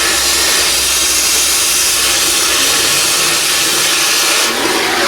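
Oxy-fuel cutting torch hissing steadily as it cuts through rusted U-bolts, with a brief dip near the end.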